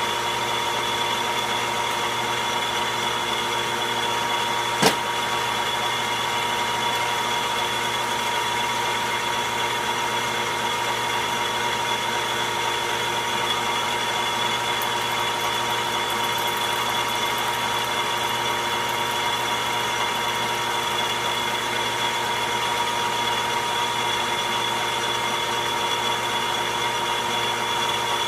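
Logan metal lathe running steadily, its motor and drive giving a constant hum with a steady whine, and one sharp click about five seconds in.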